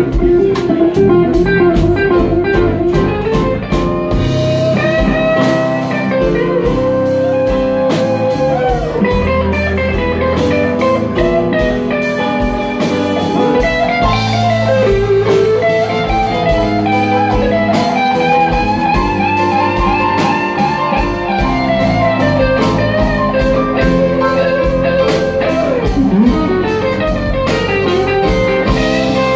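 Live blues band playing an instrumental passage: an electric guitar lead with bent, gliding notes over electric bass and drum kit.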